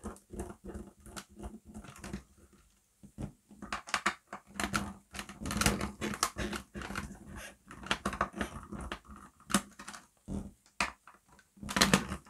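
A T8 Torx screwdriver unscrewing small screws from the plastic housing of a Dyson fluffy cleaner head, making a run of irregular clicks and ticks as the screws turn and come out.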